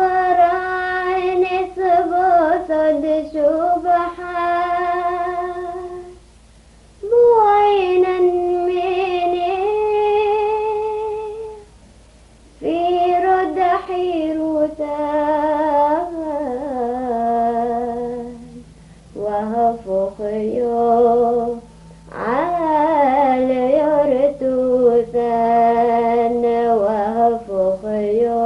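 A solo female voice singing a slow melody, holding long notes with vibrato in phrases of a few seconds, with short breaths between them.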